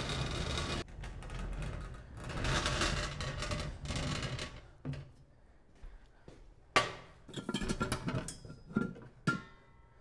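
A bar cart rolled across the floor on its casters, then a few knocks and a short ringing clink as it is set in place.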